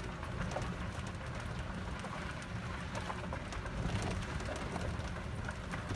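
Steady low rumble of wind and handling noise on a handheld phone's microphone, with scattered light clicks and crackles.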